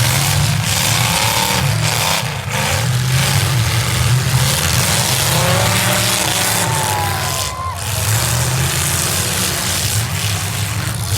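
Several demolition-derby cars' V8 engines running together in a loud, steady drone, with engines revving up and back down now and then.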